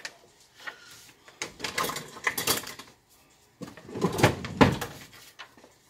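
Rummaging in a kitchen drawer for a big spoon: utensils clattering and knocking in two bursts, the second one heavier.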